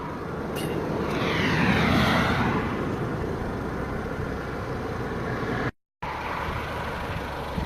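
Road traffic: a vehicle passes, its sound swelling and falling in pitch about one to two seconds in, over a steady low rumble.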